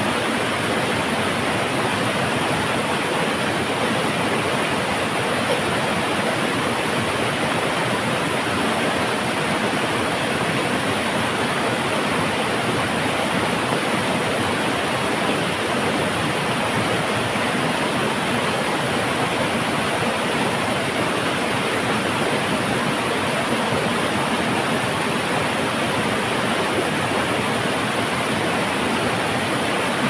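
Steady rush of a fast-flowing, muddy river pouring over a rocky waterfall.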